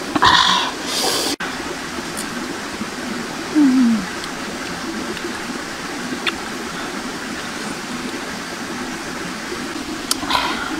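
Steady rushing noise like a running stream, with short scraping bursts in the first second as pineapple is rubbed through chili in a bowl. A brief falling tone comes about four seconds in, and another short burst comes near the end.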